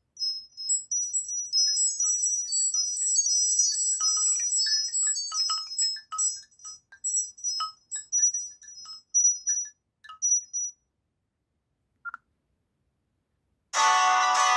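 Nokia C5-00 phone ringtone: a tune of short, high notes with a few lower notes among them, thinning out and stopping about eleven seconds in, with one last short note a second later. A louder, fuller tune, the next ringtone, starts just before the end.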